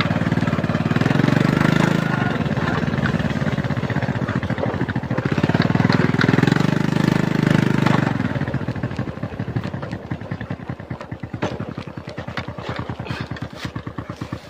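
Beat-up small motorcycle engine running while riding, with two swells in revs; about eight seconds in it eases off to a quieter, uneven putter as the bike slows.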